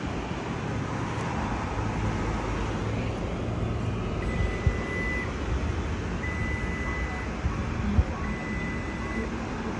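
Steady road and tyre noise heard inside the cab of a moving Ford F-150 Lightning electric pickup, with no engine note. About halfway through, three evenly spaced electronic beeps of about a second each sound at the same pitch.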